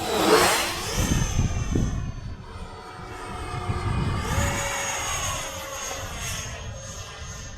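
A 70 mm electric ducted fan on a 3D-printed RC Jaguar GR.1 jet in flight: a high fan whine over rushing air, loudest just after the start as it passes close. The whine steps up in pitch about a second in and again a little after four seconds.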